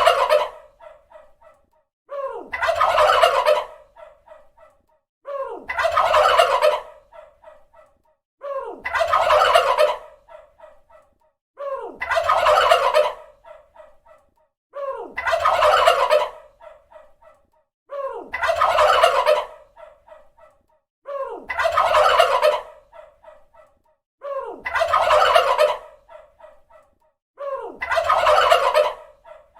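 Turkey gobbling: the same rapid, rattling gobble repeats about every three seconds, each call lasting roughly a second and a half and trailing off in short chatters.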